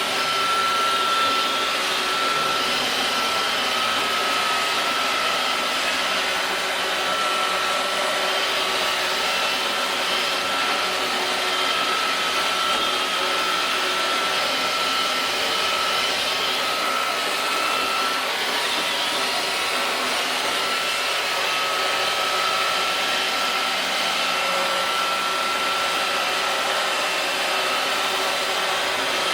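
iRobot Roomba robot vacuum cleaners running steadily while cleaning a door mat: a continuous motor whir with a high steady whine.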